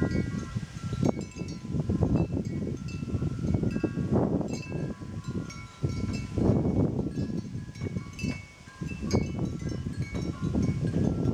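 A North American river otter crunching and chewing on a fish, in irregular spells of crackling that pause briefly a couple of times. Over it a scatter of short, clear high ringing notes.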